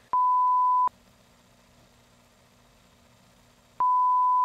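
An electronic beep, one pure steady tone like a test tone: a short beep of under a second, then after about three seconds of faint low hum a second, longer beep starts near the end.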